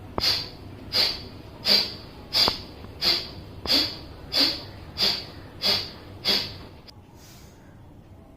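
Kapalbhati breathing: about ten short, forceful exhalations through the nose, roughly one and a half a second, each a sharp puff of air, with a softer breath after them near the end.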